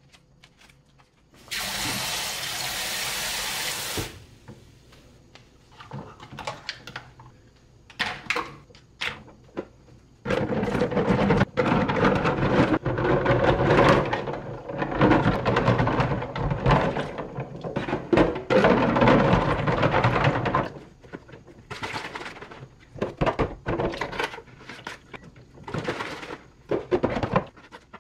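Water running from a tap in two spells: a short even hiss about a second in, then a longer, heavier run in the middle, splashing onto things in the sink. Knocks and clatter of objects being handled come between and after.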